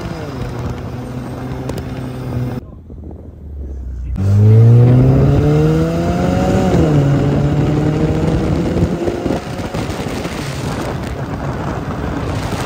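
Subaru sedan with its muffler cut off, accelerating hard: the exhaust note climbs, drops sharply at a gear change about two-thirds of the way through, then holds steady at speed. Heavy wind and road rush runs underneath.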